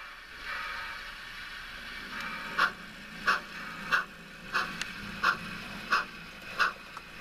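Model steam locomotive, a Yosemite Valley 1922 Baldwin 2-6-0, chuffing as it runs slowly: after a couple of seconds of steady hiss, regular chuffs come about three every two seconds, over a faint low running hum.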